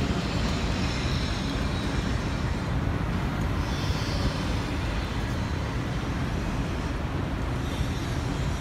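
Steady city street traffic noise: cars and taxis running along the road beside the pavement.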